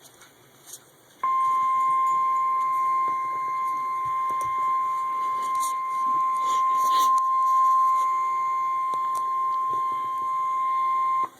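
NOAA Weather Radio warning alarm tone from a weather radio receiver, announcing a tornado warning. It is a single steady 1050 Hz tone that starts about a second in, holds for about ten seconds and cuts off sharply.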